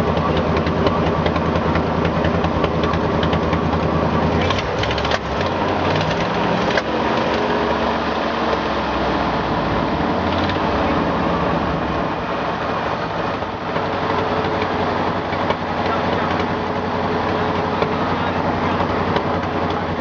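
1977 GMC dump truck's engine running steadily. Its pitch shifts and glides about five to eight seconds in, with a couple of sharp knocks around then.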